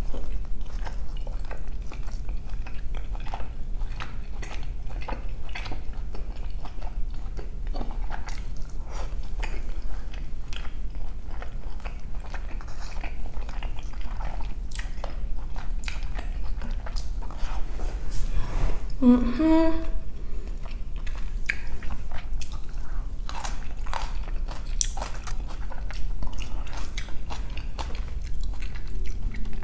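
Close-miked chewing of Korean short ribs (galbi) with rice, with many short wet mouth clicks. There is a brief hummed vocal sound about two-thirds of the way through.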